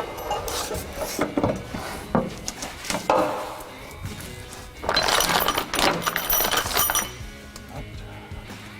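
Background music over metal clinks and knocks from tools and steel brackets, with a louder, harsher stretch of noise from about five to seven seconds in.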